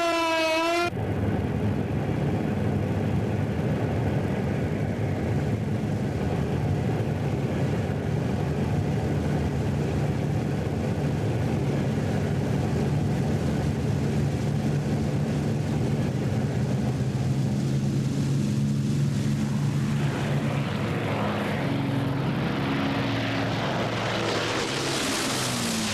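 A wailing air-raid siren cuts off about a second in and gives way to the steady drone of an Avro Lancaster bomber's propeller engines flying low. From about twenty seconds in, a rushing noise rises and grows louder over the drone.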